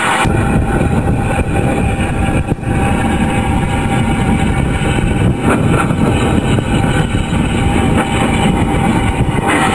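Small steam tank locomotive running along the track, heard from on board as a steady, loud rumble with heavy wind noise on the microphone.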